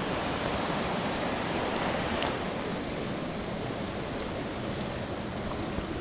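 Steady rush of a waterfall and fast-flowing beck, an even roar of falling water.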